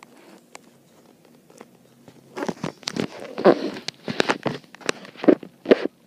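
Close handling noise: a run of rustles and soft knocks starting about two seconds in, as a hand strokes a baby bird lying on a knitted cloth.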